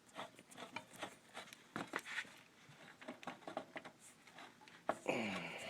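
Light, intermittent metallic clicks and knocks as a motorcycle rear axle and its parts are worked loose by hand, with a brief falling squeak about five seconds in.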